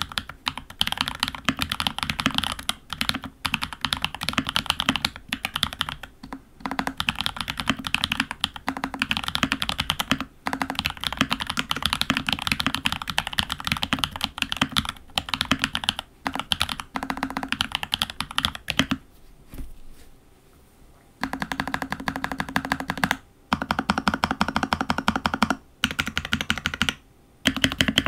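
Fast typing on a FEKER68 mechanical keyboard with Holy Panda-style Huano Iceblue switches in Gateron housings, lubed with Krytox 105, under Olivia-clone keycaps: a dense run of key clacks. After a short pause about 19 seconds in, the long keys on stock stabilizers, such as the spacebar, are pressed in short separate bursts.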